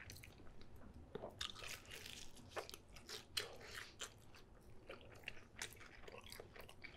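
A person chewing a mouthful of alfredo bacon-and-leek pizza: faint, irregular crunches and mouth clicks.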